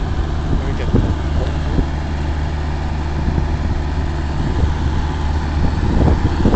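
Steady low vehicle hum, an engine and road drone, with a few faint knocks.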